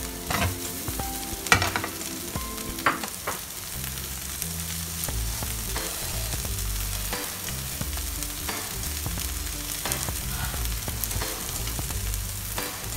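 Shrimp and beaten egg sizzling in hot oil in a nonstick frying pan, with a spatula scraping and knocking against the pan; two sharp knocks stand out in the first three seconds.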